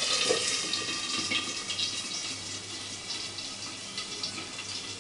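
Potato and cauliflower curry simmering in its watery gravy in a frying pan: a steady bubbling hiss with many small pops, growing slowly quieter.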